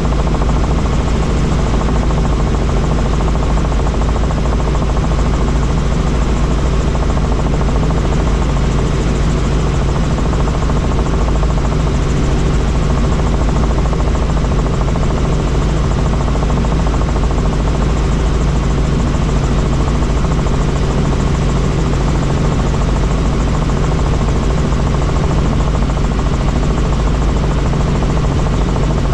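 Helicopter in flight: steady, unchanging engine and rotor noise with a strong low hum.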